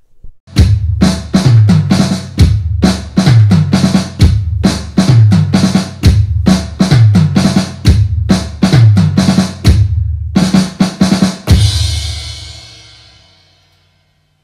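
Music carried by a drum kit: a steady beat of bass drum and snare hits, ending on a final hit that rings out and fades away.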